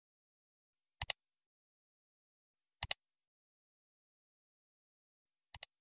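Three click sound effects, each a quick double click, about a second in, near three seconds and near the end, with dead silence between them. They are the clicks of an animated subscribe button and notification bell being pressed.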